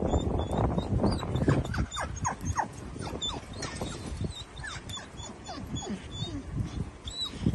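A dog whining: a string of short whines, each falling in pitch, coming a few times a second.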